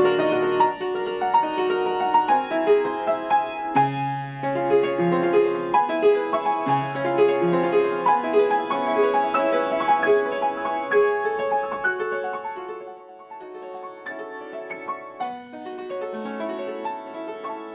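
Piano music: a running melody of quick notes over lower bass notes, turning softer about two-thirds of the way through.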